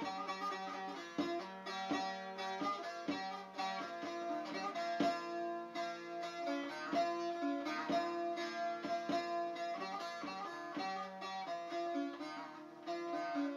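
Instrumental introduction of a Turkish folk song: a melody on plucked string instruments over a steady rhythmic accompaniment, with no singing yet.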